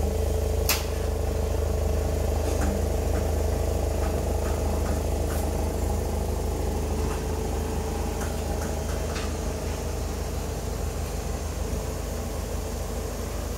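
Ford Focus 1.5 Mk3.5 four-cylinder engine idling steadily through an aftermarket single-canister rear muffler with left and right tailpipes, a deep even exhaust hum. There is a sharp click just under a second in and a few faint ticks later.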